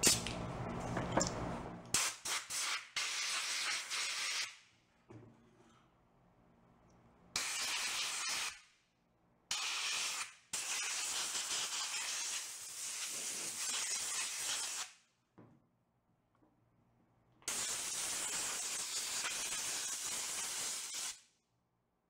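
Compressed air from a blow gun on a rubber air hose, hissing in several bursts of one to four seconds, blowing dust out of a floor fan motor's stator and end bell housing.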